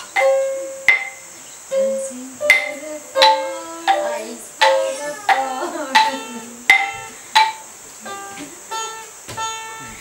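Sape, the carved Dayak Kenyah boat lute, plucked in a repeating melody, with sharp struck notes from a wooden xylophone (jatung utang) played alongside. Each note rings briefly and dies away, about one to two strong notes a second.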